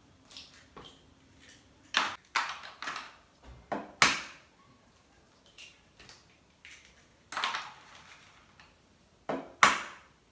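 Raw eggs cracked one after another on the rim of a bowl: sharp shell taps, often two close together, every couple of seconds.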